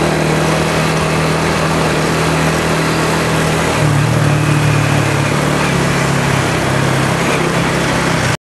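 Small motorcycle engine running steadily while riding through city traffic; the engine note rises a little about four seconds in and settles back a couple of seconds later.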